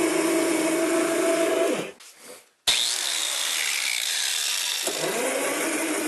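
Angle grinder grinding the edge of a plywood disc that spins on a washing-machine drive, truing the off-centre disc round. The sound drops out about two seconds in and starts again abruptly a moment later.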